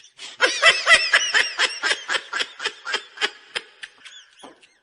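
High-pitched laughter: a rapid string of quick 'ha' pulses that slows and fades out near the end.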